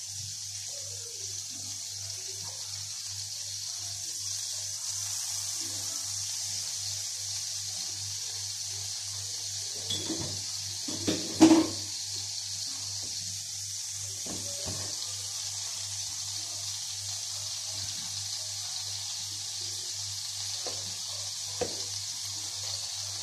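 Margarine sizzling in a hot frying pan: a steady hiss over a low electrical hum from the hob. A few short knocks and clatters come about ten to twelve seconds in.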